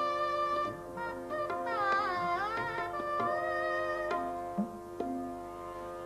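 Shehnai playing a raga melody, a held note followed by phrases that slide between pitches, accompanied by tabla strokes.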